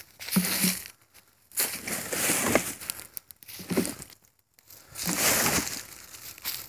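Rustling, crinkling handling noise in several irregular bursts as the recording phone is moved about and rubbed.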